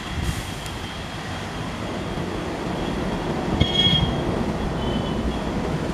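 Indian Railways diesel locomotive approaching along the track, its low rumble building steadily. A thin high whine runs through it, with a brief sharper squeal a little under four seconds in.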